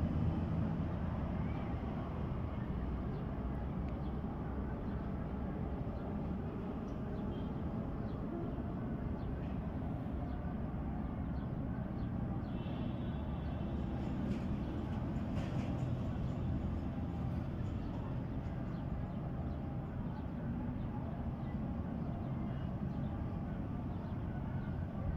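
Steady low background rumble, with a faint brief higher-pitched sound about thirteen seconds in.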